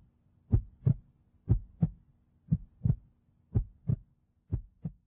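A heartbeat: pairs of short, deep lub-dub thumps, about one pair a second, over a faint steady hum.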